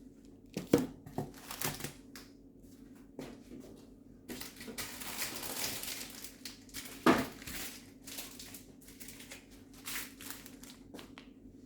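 Food containers and packets being handled and set down: several sharp knocks, with a few seconds of crinkling, rustling noise in the middle.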